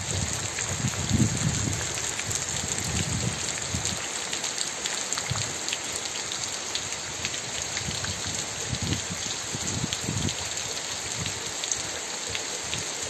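Heavy rain falling steadily on a waterlogged dirt yard, a dense patter of many small drop impacts. Occasional low thumps sound beneath it.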